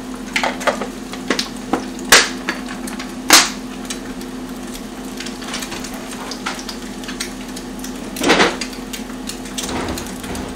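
Dishes and utensils being handled: scattered sharp clacks and knocks, two loud ones a couple of seconds in and a longer clatter near the end, over a steady hum.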